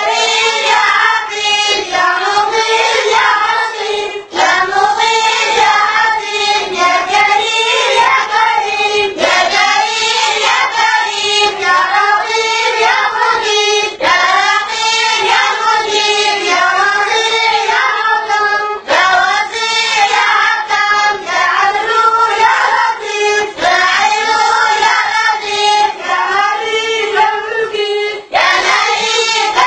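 A group of children's voices singing together in chorus, high-pitched and unaccompanied, with short breaks between phrases.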